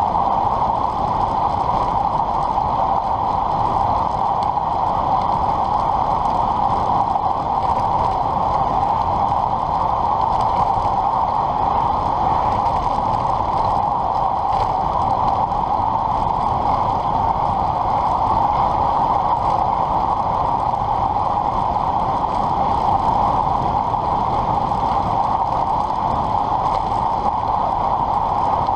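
Steady rush of wind and tyre noise from a road bike descending at about 48 km/h, heard through a bike-mounted camera's microphone; the sound stays even throughout.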